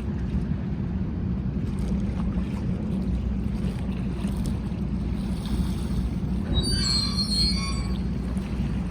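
Car ferry coming alongside the pier to dock, its engines and the wind making a steady low rumble. About seven seconds in, a brief cluster of high-pitched squeals rises over it.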